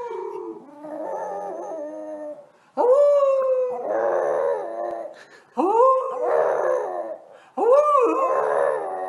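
French bulldog howling: a run of four long howls, each sweeping up at the start and then held with a wavering pitch. The first is already under way, and new ones begin about three, five and a half, and seven and a half seconds in.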